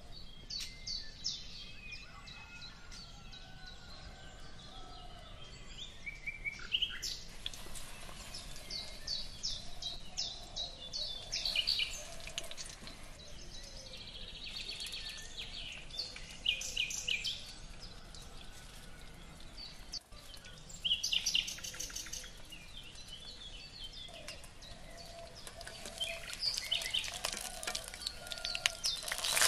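Small birds chirping: spells of quick, high repeated notes with short gaps between them.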